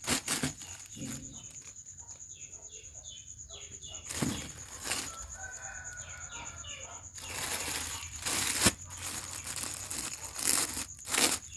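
Packaging being handled: rustling and crinkling, loudest in the second half, with a few sharp clicks. Short falling chirping calls come in quick series twice, and a faint steady high whine runs underneath.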